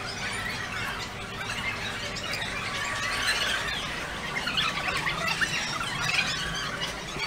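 A dense chorus of short, high squealing and chirping calls from many animals, overlapping without pause.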